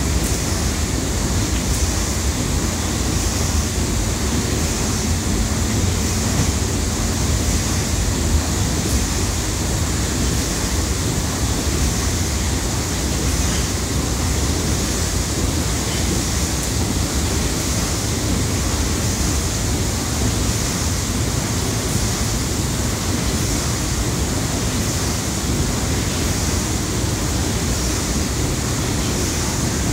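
Sulzer diagonal steam engine of a 1910 paddle steamer running at steady speed: an even rushing hiss over a low rumble, with no distinct knocks or pauses.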